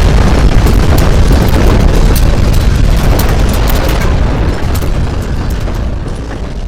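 Earthquake shaking: a loud deep rumble laced with many sharp rattles and clicks, dying away over the last couple of seconds.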